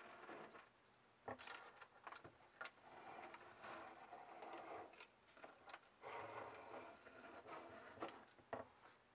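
Small hobby servo motor whirring faintly in short bursts as it turns back and forth, correcting to hold its heading while the board is moved, with a few sharp clicks between bursts.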